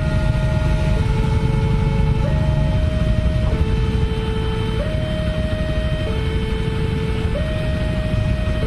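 Railway level-crossing warning alarm from a pole-mounted horn loudspeaker, a two-tone signal that alternates between a higher and a lower note about every 1.3 seconds, warning that a train is coming and the barriers are down. A low, steady rumble runs underneath.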